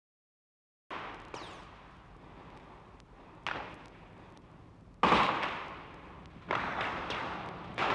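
Street riot sound effect: noise starts suddenly about a second in, then four sharp bangs about a second and a half apart, each fading away with an echo, the loudest about five seconds in.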